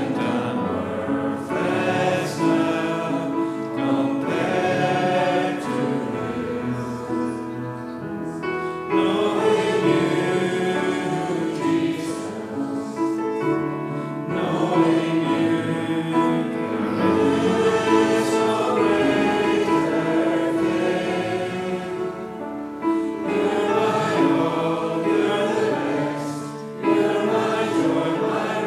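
Choral music: a choir singing in long, held phrases, with the notes changing every few seconds.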